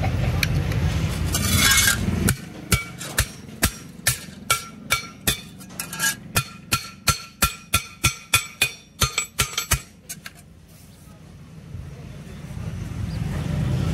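Gas welding torch flame running with a steady low rush until about two seconds in, when it stops. Then a wooden mallet beats the freshly welded thin steel sheet against a block: about twenty sharp blows at two to three a second, each with a short metallic ring, ending about ten seconds in.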